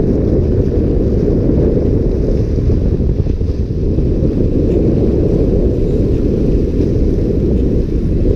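Wind buffeting the action camera's microphone, a loud steady low rumble, with waves washing over the breakwater rocks underneath.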